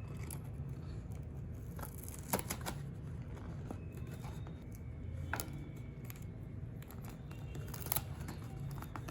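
Adhesive tape being torn off and pressed onto cardstock: a few short, sharp rips and rustles, quiet, over a steady low hum.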